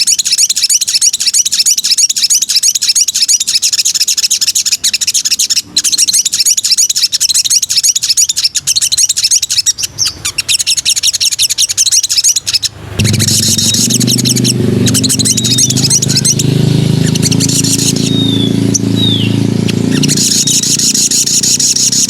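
A small songbird, the sogok ontong, singing a fast, continuous, high twittering song. About thirteen seconds in, a steady low hum comes in beneath it, and several short down-slurred whistles follow near the end.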